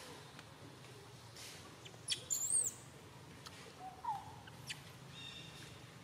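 Long-tailed macaques calling: a few short, high squeaks and chirps, the loudest a shrill, arched squeal about two seconds in.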